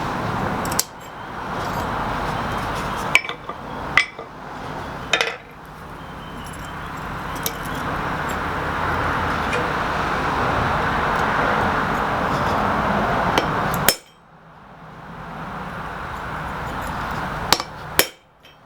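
A powered cutting tool running steadily as it cuts part way into steel flat stock for hinge knuckles, stopping abruptly three times. Sharp metallic clinks and taps come a few seconds in and again near the end.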